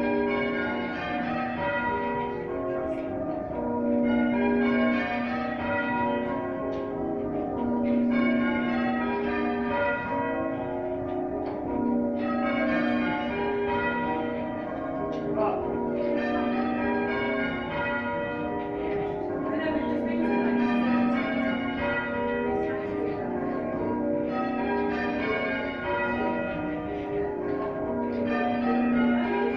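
Church bells rung one after another in a repeating sequence. Each round ends with the deepest bell, about every four seconds, and the rounds continue without a break.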